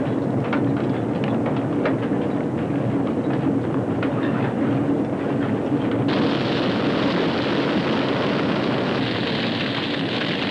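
Westland Sea King HAR3 helicopter's rotor and engine noise, a steady rumble with scattered knocks in the first half. About six seconds in, a loud steady hiss sets in suddenly on top of it.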